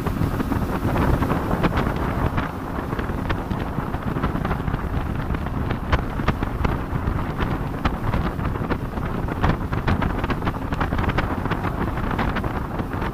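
Speedboat running fast across open water: engine and rushing wind buffeting the microphone, with frequent short sharp knocks throughout.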